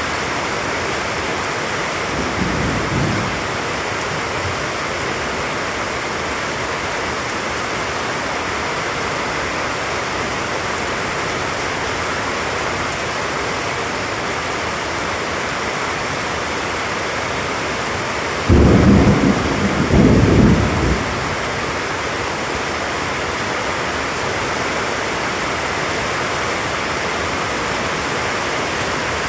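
Tropical rain falling heavily and steadily, with a faint rumble of thunder about two seconds in and a louder rumble of thunder about two-thirds of the way through that starts suddenly and comes in two surges.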